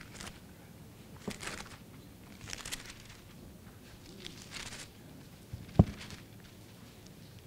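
Paper rustling close to a lectern microphone: a few short swishes of pages being turned, with one sharp thump a little past halfway.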